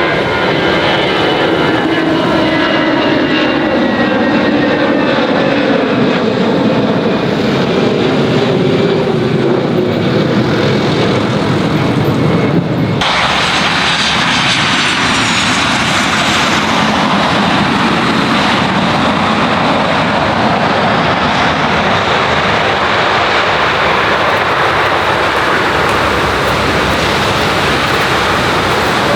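Airbus A330-300 jet engines passing on a landing, a loud steady rush with several engine whines falling in pitch. About halfway through the sound changes abruptly to a broader rush, with a high whine falling in pitch just after.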